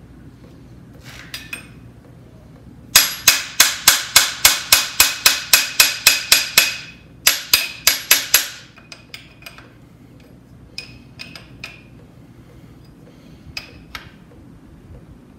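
Metal hand tool striking the engine: a run of sharp, ringing metallic strikes at about four or five a second lasting several seconds, a brief pause, a few more strikes, then scattered lighter clicks and taps.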